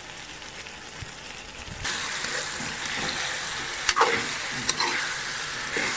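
Chicken, sliced potatoes, tomatoes and green chillies sizzling in hot oil in a metal cooking pot as the biryani masala is fried; the sizzle gets louder about two seconds in. A spoon scrapes and clicks against the pot a few times as the mixture is stirred.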